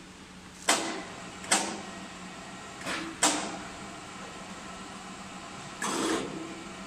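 Sharp metallic clanks, about four in all, from the chain-hung steel rack of red-hot dozer blade cutting edges as it is lowered toward the quench tank, each ringing briefly, over a steady low hum.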